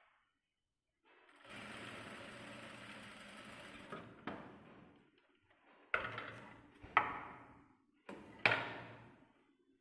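Jack industrial single-needle sewing machine stitching steadily for about three seconds, starting about a second in, then three short sharp bursts that each die away.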